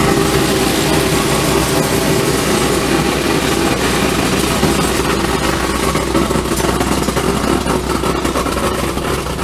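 Satake Evolution optical colour sorter running a resort of corn rejects: the feeder and a stream of corn kernels, cob and debris rattling down the chutes while the high-volume air ejectors fire rapidly, a loud, dense rattling hiss over a steady low hum. It starts abruptly as the run begins.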